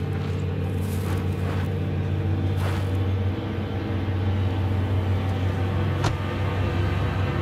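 Footsteps crunching through deep, fresh snow, a few separate steps, over a steady low rumble.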